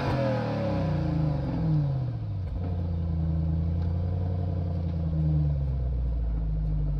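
Car engine heard right at the exhaust tailpipe, its revs falling away over about two and a half seconds after a hard rev. It then settles into a steady idle, with a slight rise in revs about five seconds in.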